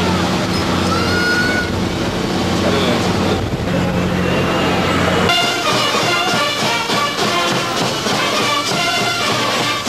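A ship's horn sounds a long, deep blast with a short break about three and a half seconds in, and cuts off suddenly a little past five seconds. Music with voices follows.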